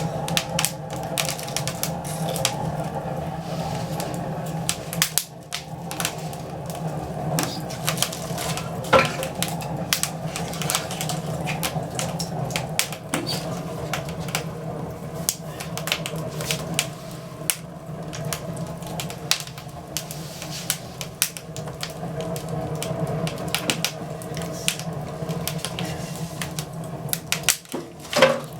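Wood fire crackling in a fireplace as broken fruit-crate and pallet wood burns, with rapid irregular pops over a steady low hum. There are a few louder knocks near the end.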